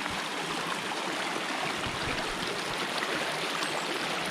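Shallow creek flowing over rocks, a steady rush of water.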